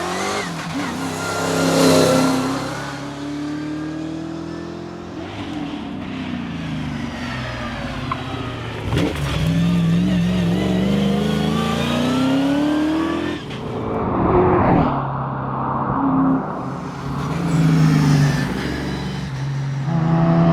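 Holden Torana rally car's engine under hard acceleration, its pitch climbing through each gear and dropping back at the shifts, several times over.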